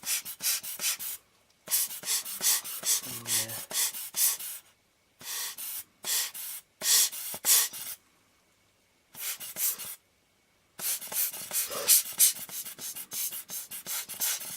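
Lens tissue being rubbed over a glass lens element in quick, repeated short strokes, a dry scratchy wiping in several runs with brief pauses between them.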